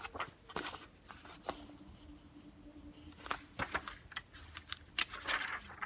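Pages of a picture book being handled and turned: scattered soft rustles and light clicks.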